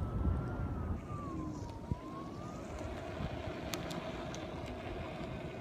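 Airwheel electric unicycle's hub motor whining faintly as it rolls, the pitch dipping and then rising again over a couple of seconds before settling into a steadier, lower hum. A low rumble fades in the first second, and a few light ticks come near the end.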